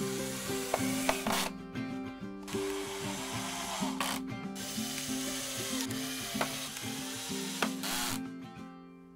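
Cordless drill driving screws into wooden decking boards in three short bursts, over soft background music.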